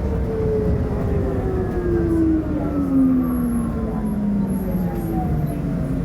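Electric traction motor of a Caio Millenium II trolleybus on a Mercedes O500UA chassis, its whine falling steadily in pitch over about five seconds as the trolleybus slows, over a low rumble of vehicle noise.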